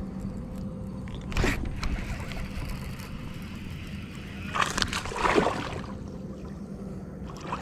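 Water sloshing and handling noise on a fishing kayak, with a short rush about a second and a half in and a longer, louder rush around five seconds in as the rod is swept up to set the hook on a bass.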